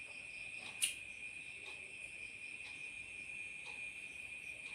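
Faint, steady high-pitched drone, with one sharp click about a second in and fainter ticks about once a second.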